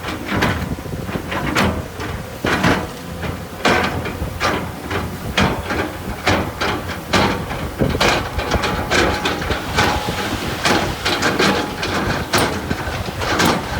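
A heavy earthmoving machine running with a low rumble, with frequent irregular clanks and rattles of metal and stone as it works gravel.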